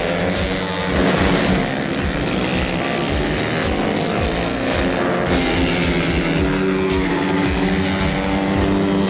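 Engines of small 125–150cc race motorcycles running at high revs as the bikes go past, mixed with background music that has a steady beat.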